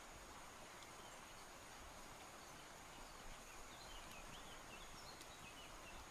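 Near silence: faint outdoor background with a steady thin high whine like insects, and a few faint bird-like chirps around the middle.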